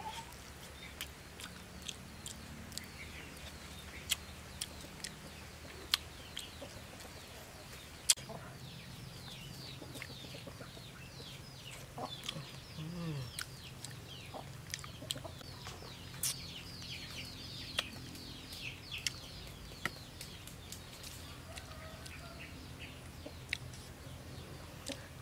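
Sharp crunches and clicks of someone biting and chewing grilled fish bones, scattered through, over birds chirping and clucking in the background.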